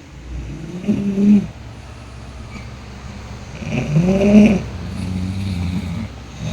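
Several people asleep snoring in turn, loud and pitched: a short snore about a second in, a louder longer one around four seconds, then a lower, steadier drawn-out snore.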